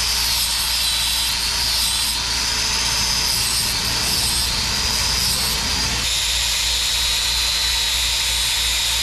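Electric angle grinder running steadily while grinding, with its sound changing about six seconds in.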